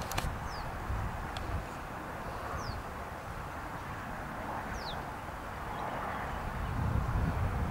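Outdoor ambience: wind rumbling on the microphone, with a bird giving three short falling whistles about two seconds apart.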